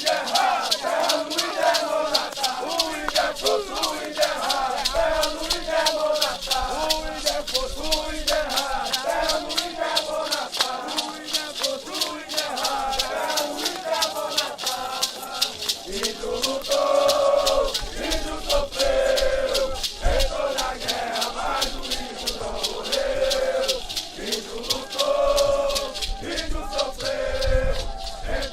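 Group of voices chanting together to maracas shaken in a steady beat of about three to four strokes a second. After about halfway the chant turns to longer, held sung phrases.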